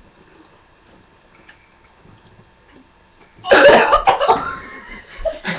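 A person coughs and splutters loudly for about a second, starting about three and a half seconds in, while eating a pickled onion.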